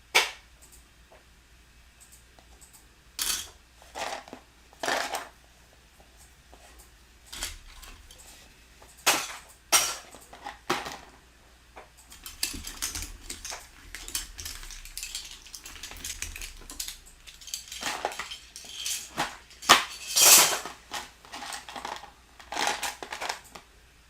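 Small plastic building bricks being handled and sorted: separate sharp clacks over the first ten seconds, then a longer stretch of rummaging and clattering through loose pieces, loudest about twenty seconds in.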